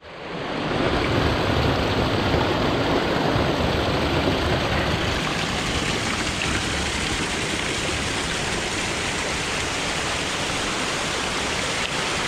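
Small waterfall spilling over mossy rock and splashing onto the stones below: a steady rush of falling water that fades in over the first second.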